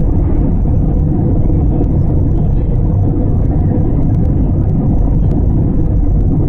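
Steady low rumble of a jet airliner's engines and airflow, heard from inside the passenger cabin, with a faint steady hum running through it.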